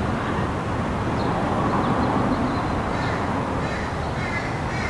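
Steady outdoor background rumble, with short bird calls in the second half.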